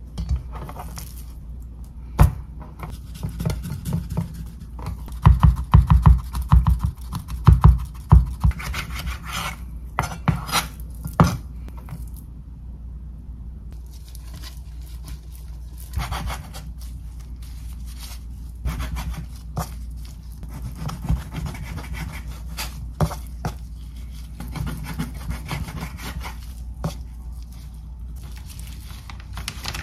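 Kitchen preparation sounds: irregular knocks, taps and scrapes of utensils and dishes on a wooden surface, busiest about five to eight seconds in, over a steady low hum.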